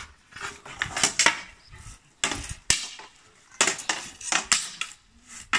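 Billhook, sword and shield clashing in a medieval sparring bout: irregular sharp metallic clanks and knocks, coming in quick clusters with short gaps between.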